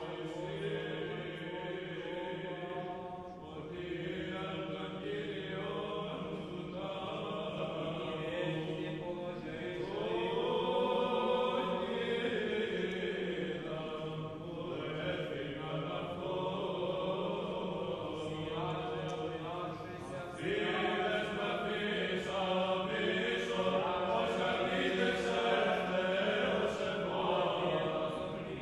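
Background music: voices singing a chant in long held notes, growing louder about two-thirds of the way through.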